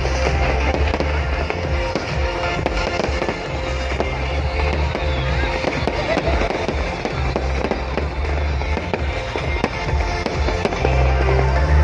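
Fireworks display going off continuously: a rapid run of bursts and crackle with a heavy low rumble, and music playing along with it.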